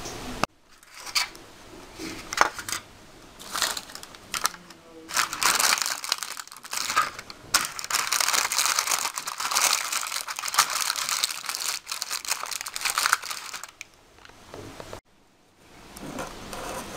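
A thin plastic sheet being handled and spread out by hand, crinkling. It gives scattered crackles at first, then a dense run of crinkling for several seconds, and stops shortly before the end.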